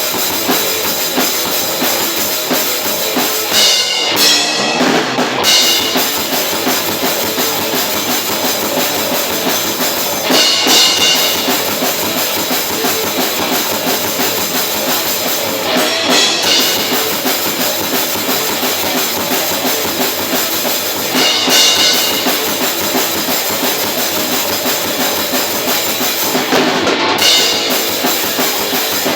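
Experimental metal band playing live: drum kit with bass drum and electric guitar, loud and dense, with a heavy accent about every five and a half seconds.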